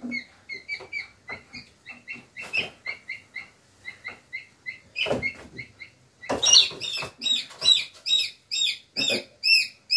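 Live chicks peeping over and over, a run of short, high, falling cheeps at about three a second that grows louder after about six seconds. A few sharp knocks and rattles are mixed in.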